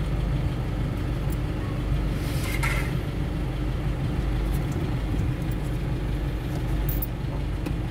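Toyota Innova's engine idling, a steady low rumble heard inside the cabin, with a few faint clicks over it.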